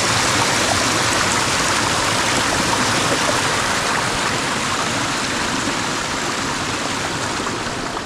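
Water in an icy mountain stream rushing steadily, an even, unbroken rush.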